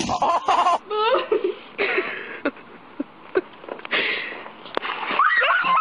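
High-pitched laughing and squealing voices in short wheezing bursts, with a few sharp clicks in between.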